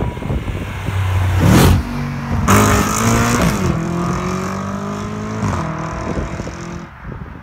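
Audi RS4 B8's 4.2-litre V8 with a straight-pipe exhaust, flap open, accelerating hard past and away. It is loudest as the car goes by, the pitch drops twice at upshifts and climbs again, and then the sound fades into the distance near the end.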